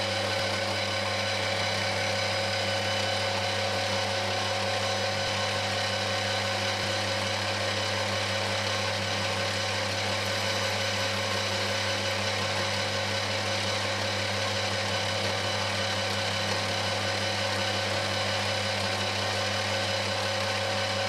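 Machine tool motor running steadily, a constant hum that cuts off suddenly at the end.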